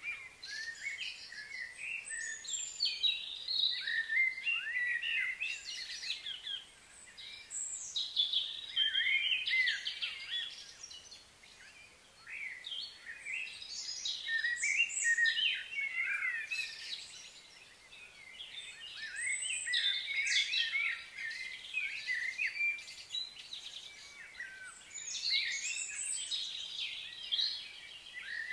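A chorus of songbirds chirping and calling, many short high chirps and quick gliding notes overlapping, swelling and easing off every few seconds.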